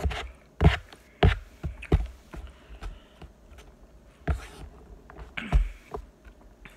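Metal spoon scraping and knocking against a takeout food container while mixing salad and rice: a string of irregular clicks and knocks, a few a second at first and sparser later.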